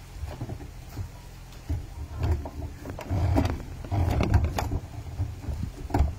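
Handling noise on a phone's microphone as the phone is moved and clothing rubs against it: irregular muffled rumbles and knocks, with a few sharp clicks, the loudest one near the end.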